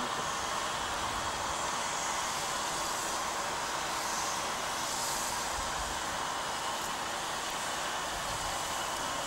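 Steam locomotive working hard as it pulls a train away from a station, with a steady hiss of steam and no clear separate exhaust beats.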